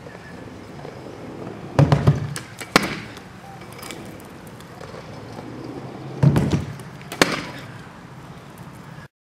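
Stunt scooter landing tricks on asphalt twice, each landing a clattering thud followed by a sharp click less than a second later, with the wheels rolling on the road between. The sound cuts off suddenly near the end.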